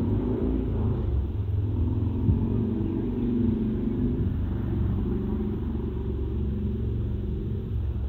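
A steady low rumble of outdoor background noise, fluctuating slightly, with no distinct calls standing out.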